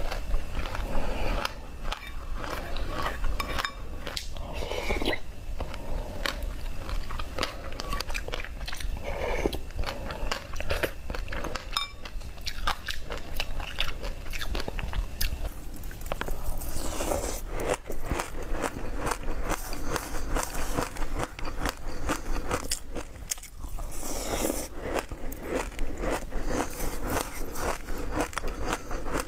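A person chewing mouthfuls of small hard seeds close to the microphone: a dense run of sharp crunches and crackles as the seeds break between the teeth.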